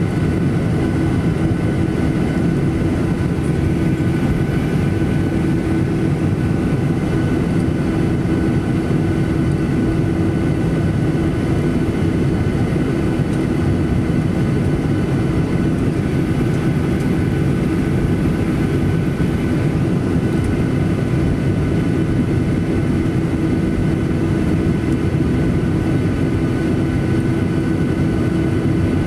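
Inside the cabin of a Boeing 737-800, its CFM56-7B turbofan engines run at low taxi power: a steady hum with a few held tones over the airflow noise of the cabin.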